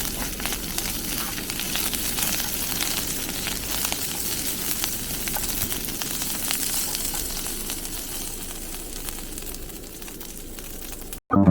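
A steady crackling hiss, thick with fine clicks, that cuts off abruptly near the end.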